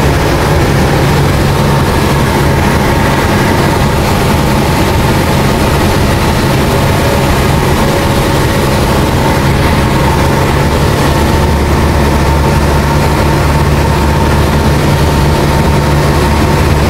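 Single-engine Cessna's piston engine and propeller droning steadily, heard inside the cabin in flight.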